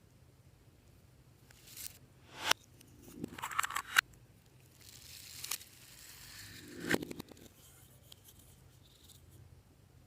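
Slime being stretched and squeezed by hand: a handful of short sticky tearing and crackling sounds, each swelling and then snapping off abruptly.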